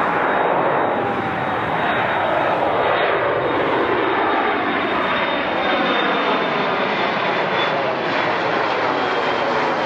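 Jet airliner's engines passing close by, a loud steady rush with a pitch that slides downward as it goes past.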